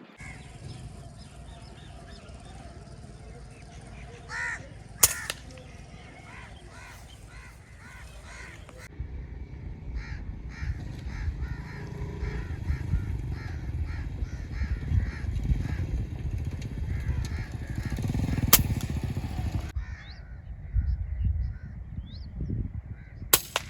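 Crows cawing repeatedly, with three sharp cracks of a PCP air rifle firing: about five seconds in, around the middle and near the end.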